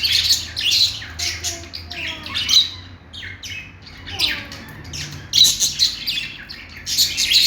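Budgerigars warbling and chattering: a rapid, irregular string of short, high chirps and squawks, with a brief lull about three seconds in.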